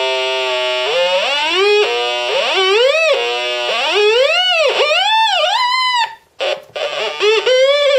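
Doomsday Sound circuit-bending kit buzzing an electronic tone through its small speaker. The pitch swoops up and down in repeated arches as fingers press its pressure-sensitive metal contacts. About six seconds in it cuts out briefly, then comes back with short upward glides.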